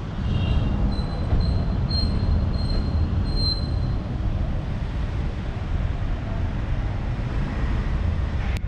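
Steady low rumble of outdoor traffic noise and wind on the microphone, with a thin high squeal coming and going in the first few seconds.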